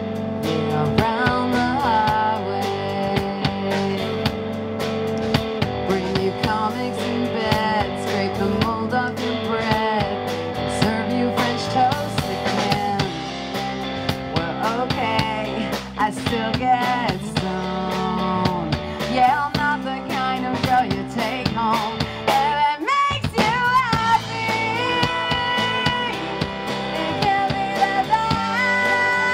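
Live rock band playing: drum kit, bass guitar and electric guitar, with a woman singing into the microphone at times. The music breaks off briefly about 23 seconds in.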